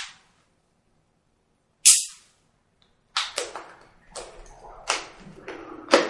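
Vinyl wrap film crackling and snapping as it is handled and trimmed: one sharp snap about two seconds in, then a run of short, crinkly bursts.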